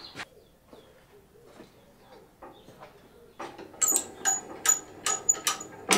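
Metal parts of an old Wadkin Bursgreen table saw being handled. After a quiet first half, there is a quick run of six or seven sharp metallic clinks and knocks, each with a short bright ring.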